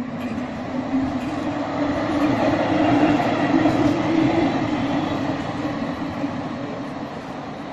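Articulated Simmering-Graz-Pauker (SGP) tram passing close by on street track, its running noise and a steady hum swelling to a peak about three to four seconds in, then fading as it moves away.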